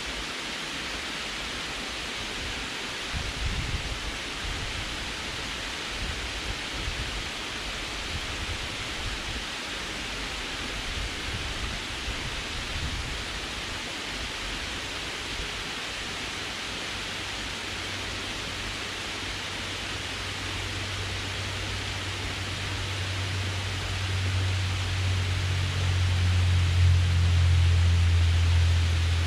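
Water pouring over a concrete dam spillway, a steady rushing hiss. About two-thirds of the way in, a low rumble rises underneath and is loudest near the end.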